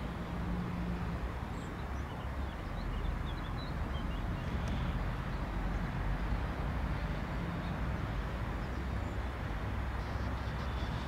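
Airbus A319's twin jet engines running at taxi idle: a steady low rumble with a hiss, rising slightly in level after a few seconds.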